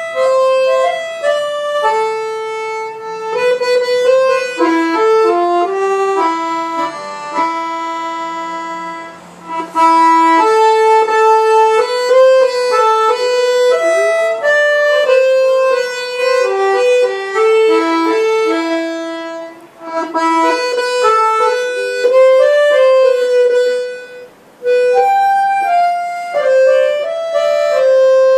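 Accordion playing a solo melody line of held notes, with no bass accompaniment, in phrases broken by a few brief pauses.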